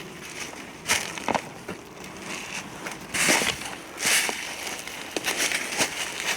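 Footsteps crunching through dry fallen leaves, an uneven series of crunches a second or so apart.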